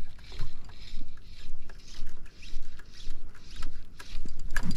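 Fly line being stripped in by hand in short pulls, a soft swishing hiss with each pull, about two a second.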